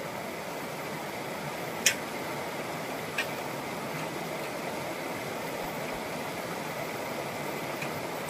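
Steady rush of a shallow stream running over rocky rapids, with a sharp click about two seconds in and a fainter one about a second later.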